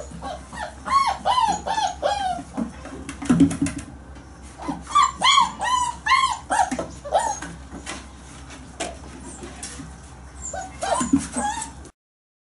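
A litter of 30-day-old German Shepherd puppies whining and yipping as they play, in two runs of short rising-and-falling cries with a few more near the end. There is a thump about three and a half seconds in.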